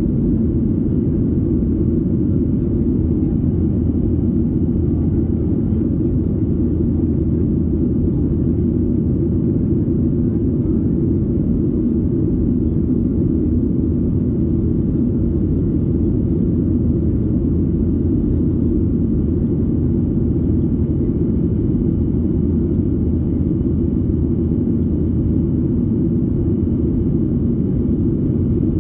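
Steady low roar heard inside the cabin of a Boeing 737-800 from its CFM56-7B jet engines, loud and unchanging throughout.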